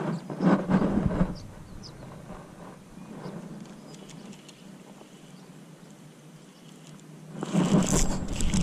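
Wind gusting over the microphone in rumbling bursts, one about half a second in and a stronger one from about seven and a half seconds in, with a quieter stretch between.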